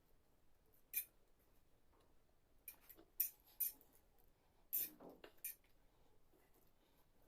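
Close-up eating sounds from a person eating ramen noodles: about six short, sharp wet clicks of chewing and mouth smacks, or utensils ticking, spread over the first five seconds, with a softer, longer mouth sound about five seconds in.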